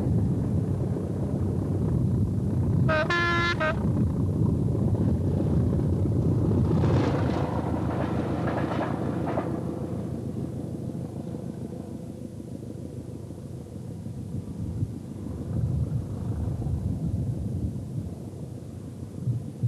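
Diesel multiple unit running by with a steady low rumble, sounding one short horn blast about three seconds in. A louder passing rush follows around seven to nine seconds in, then the rumble fades.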